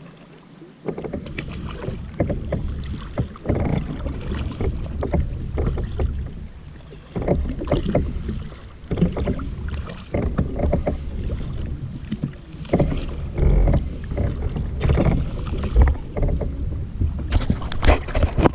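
Kayak paddling on calm sea: irregular splashes and water lapping against the hull, with wind rumbling on the deck-mounted microphone.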